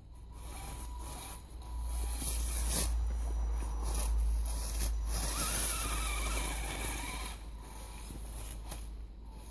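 Axial SCX10 scale RC crawler's electric motor and gear drive whining as it crawls through snow, with a scraping crunch of tyres in the snow. It is loudest in the middle as the truck comes close, with a wavering whine from about halfway to two-thirds of the way through.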